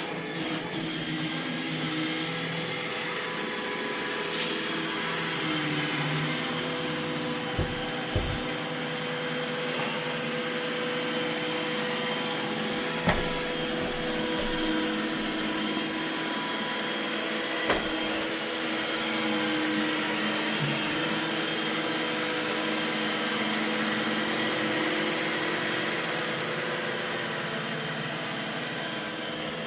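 iRobot Roomba E6 robot vacuum running a cleaning pass: a steady whir from its motors with a constant hum, and a few brief knocks along the way.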